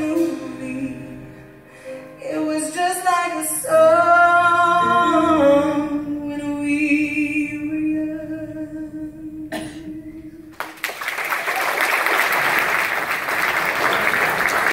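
Female vocalists with a live band finishing a song, ending on one long held note that stops abruptly about ten seconds in. The audience then breaks into applause.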